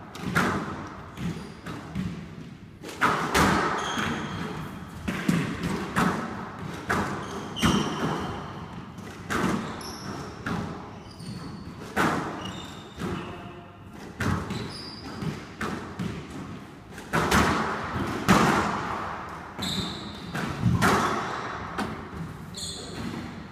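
A squash rally: the ball is struck by the rackets and smacks off the walls and floor in a quick, irregular series of sharp hits, with short high squeaks of court shoes on the wooden floor between them.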